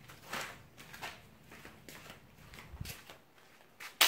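Faint scuffing and small handling clicks, then a single sharp click near the end.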